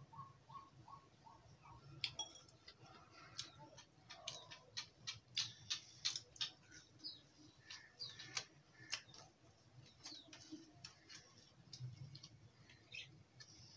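Soft, irregular clicks and smacks of chewing as a person eats a crispy fried bread pakoda.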